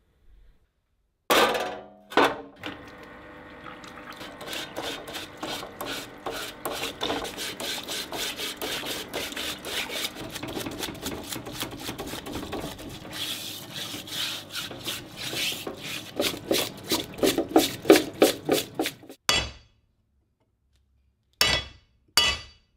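Stiff nylon brush scrubbing a rusty steel gear rack in a parts-washer tub, in quick back-and-forth strokes that grow louder toward the end, after two loud knocks a second or two in. Near the end come two sharp metal strikes, a pin punch being driven at the drill stand's cast head.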